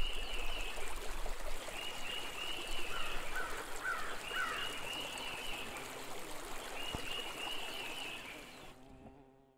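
Running stream with a songbird repeating a short warbled phrase about every two and a half seconds, a few rising notes between, fading out near the end.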